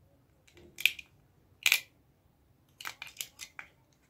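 Sharp plastic clicks from handling a mini wireless speaker's plastic housing while pulling its cylindrical battery out: two loud clicks about a second apart, then a quick run of lighter clicks near the end.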